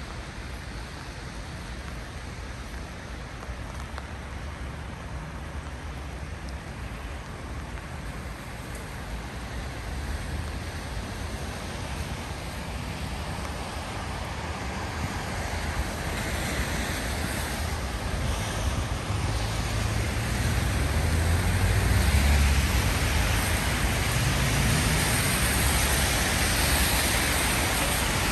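Steady rain on a city street mixed with wet road traffic. The traffic rumble grows louder through the second half and is loudest about three-quarters of the way through, as a vehicle goes by.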